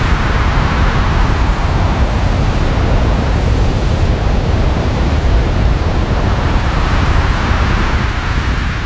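Sci-fi alien-planet wind sound effect: a heavy, steady rush of wind noise over a deep rumble, its hiss swelling and easing, starting to fade out near the end.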